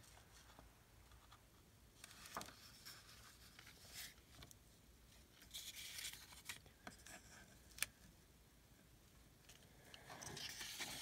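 Faint paper and card rustling with light taps as cut pieces are handled and set down, and one sharper click about eight seconds in.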